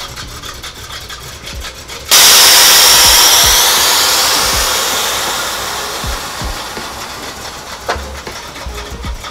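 A loud rushing hiss starts abruptly about two seconds in and fades away slowly over the next five seconds or so.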